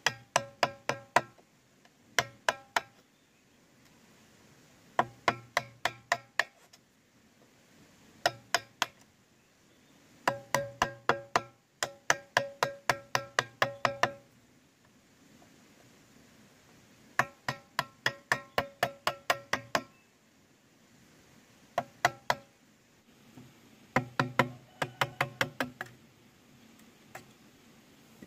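Bamboo being struck with a tool in quick runs of sharp knocks, each with a hollow, woody ringing tone. The knocks come in bursts of roughly five to ten strikes at about four to five a second, with short pauses between the bursts.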